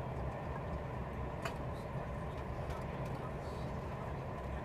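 Cabin noise of a Thalys high-speed train running at speed: a steady low rumble with a faint steady whine above it, and a single click about one and a half seconds in.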